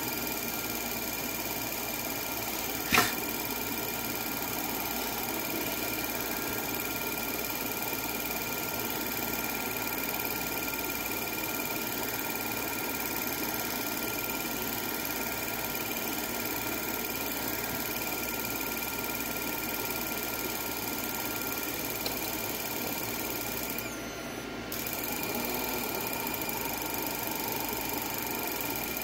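Steady electrical whine and hiss from the timing-light test rig on the bench, the strobes being triggered off a motor-driven pulse source, with one sharp click about three seconds in.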